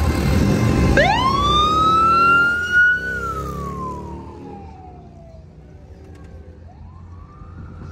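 An emergency vehicle siren winding up about a second in, holding high, then sliding slowly down over a couple of seconds, and starting to rise again near the end, over the road and wind noise of an open-top vehicle in motion.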